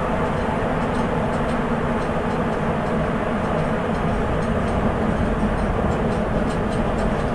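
Sapporo Municipal Subway 8000 series train with Toshiba IGBT-VVVF drive, a rubber-tyred metro car, running steadily through the tunnel: an even rumble with a low hum and faint clicks.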